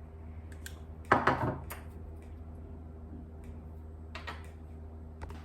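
Plastic remote car key being handled and taken apart on a workbench: small clicks and taps of the hard shell, with one louder clatter about a second in, over a steady electrical hum.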